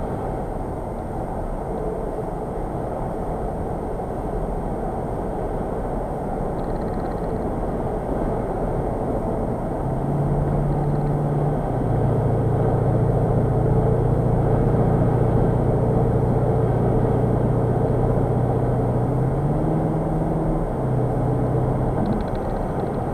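In-cabin sound of a Skoda Octavia RS's 2.0 TDI four-cylinder diesel under way at about 80–90 km/h: tyre and road noise with a steady engine drone. The drone grows louder about ten seconds in as the car pulls, and its pitch steps down twice as it shifts up.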